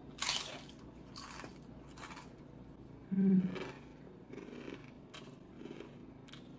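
Crunching bites and chewing of crisp dill pickled green beans, in a few short crackly bursts, with a brief low hum from the eater about three seconds in.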